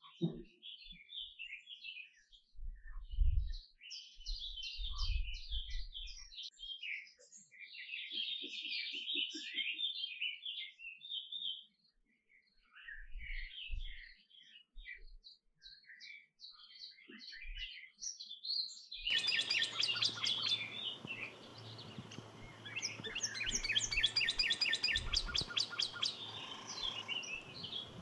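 Canary singing a long, varied song of chirps and trills. In the second half come fast, rattling trills over a steady background hiss. A few low thumps come in the first half.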